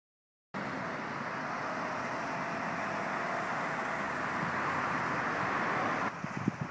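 Road traffic noise from a busy main road, a steady wash of passing cars that starts about half a second in and slowly grows louder. About six seconds in it cuts off suddenly, giving way to quieter, uneven low rumbling.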